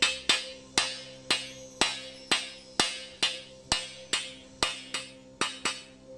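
Hammer striking the end of a metal pipe about twice a second, each blow a sharp clang with a short ring, to close the pipe's end and make its opening smaller.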